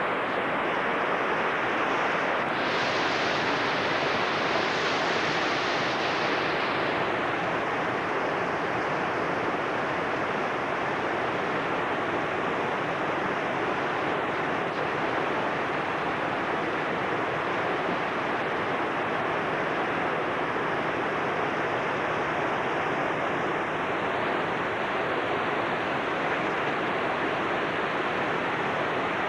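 Steady rushing roar of whitewater rapids, a little hissier for a few seconds near the start.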